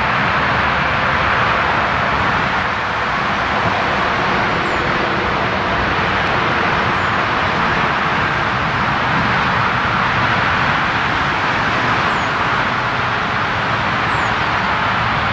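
Steady, even roar of road traffic with a low rumble under it, unchanging throughout; a few faint, short high chirps sound over it.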